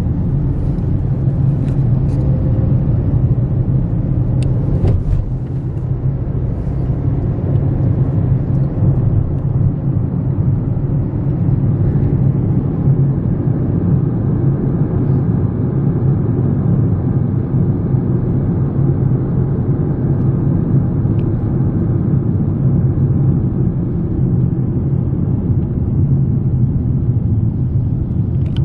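Steady low rumble of a car on the move, engine and road noise heard from inside the cabin, with a few faint clicks in the first five seconds.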